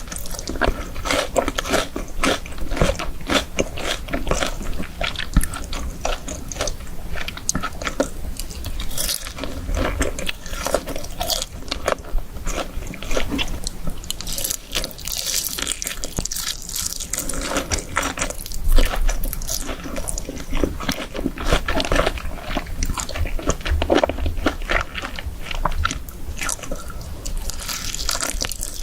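Close-miked eating: crunchy fried chicken being bitten and chewed, with many irregular crackles and some wet chewing and slurping sounds.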